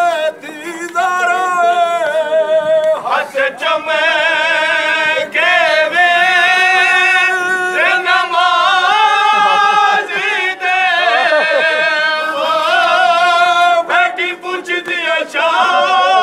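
A man chanting a mourning lament (noha) in long, wavering held notes, with short breaks between phrases.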